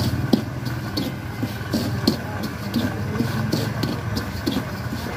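Curved metal scraper stirring hot sand around a roasting corn cob in a clay pot, in short scraping strokes about three a second, over a low steady hum of street traffic.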